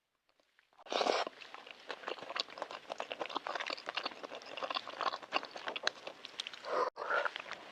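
Close-miked crackling and clicking from balut being handled and eaten: a loud burst about a second in, then a dense run of small crackles, and another burst near the end.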